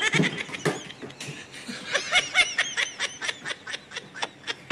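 A person laughing in a quick run of short breathy bursts, rising into high-pitched giggling about two seconds in.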